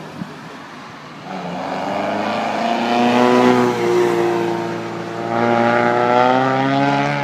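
Classic car engines running as cars pass: the engine note builds from about a second in, swells, eases, then swells again near the end with slight shifts in pitch.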